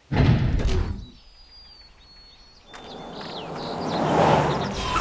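A cartoon whoosh effect for a scene transition at the start, then faint birds chirping, then an animated safari jeep driving up, its engine and tyres growing louder over a couple of seconds.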